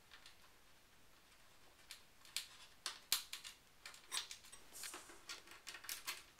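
Faint, irregular clicks and taps of metal parts being handled as a replacement power supply is lined up in a Power Mac G5 case. The clicking starts about two seconds in and comes thicker in the second half.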